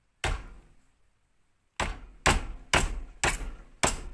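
Hammer blows on a small microwave fan motor, struck to knock a part loose: one blow, then after about a second and a half five more at about two a second, each with a short ringing tail.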